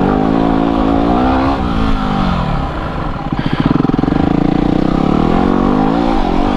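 Yamaha WR250R's single-cylinder four-stroke engine revving as the bike is ridden over a trail: the pitch climbs about a second and a half in, drops, then holds fairly steady before dipping again near the end.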